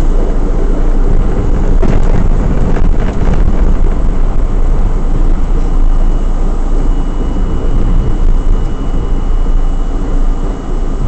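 R32 subway car running at speed on the A line, a loud steady rumble of steel wheels on rail with a few clicks and clatters about two to three seconds in and a thin steady high tone over the top.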